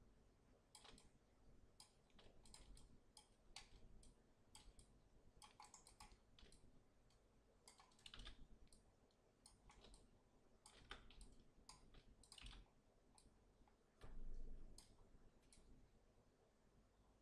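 Faint, irregular clicking of a computer mouse and keyboard, single clicks and quick runs of clicks scattered throughout. About fourteen seconds in there is one short, louder soft noise.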